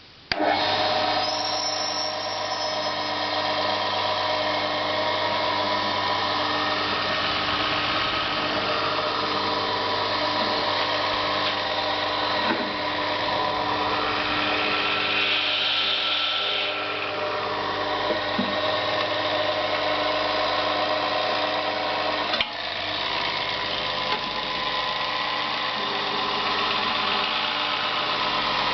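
Syderic SP610 electric drill switched on and running steadily at speed, with a brief click and dip in the sound about three-quarters of the way through.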